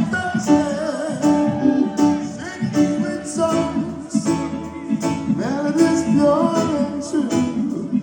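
Live reggae band playing with lead vocals over guitar, bass and drums.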